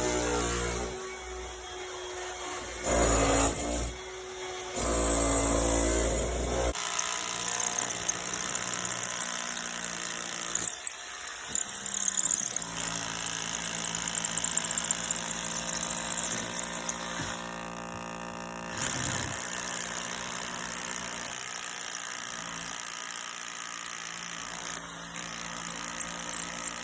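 Power tool running against brickwork, cutting or drilling through the wall to make the opening for an airbrick, in a series of short clips with abrupt changes in pitch and level.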